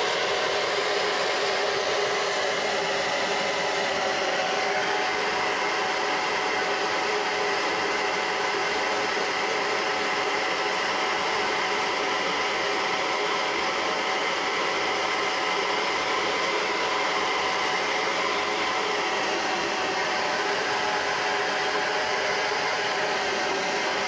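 UNIKARA ionic hair dryer running steadily while blowing through long wet hair: an even rush of air with a faint whine over it.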